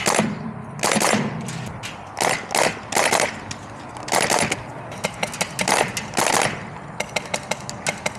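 Airsoft guns firing in short bursts of sharp clicks. Near the end comes a fast, even full-auto string.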